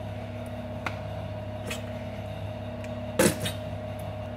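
Ketchup squeezed from a plastic squeeze bottle into a measuring spoon: small squirts, then a louder sputtering spurt about three seconds in. A steady low appliance hum runs underneath.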